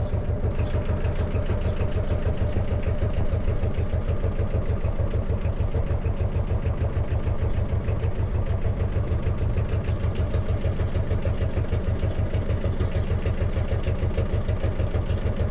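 Narrowboat's inboard diesel engine running steadily as the boat cruises, with an even, fast beat.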